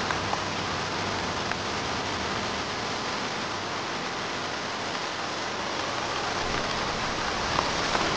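Steady rain falling on wet pavement, an even hiss, with a low rumble beginning to build near the end.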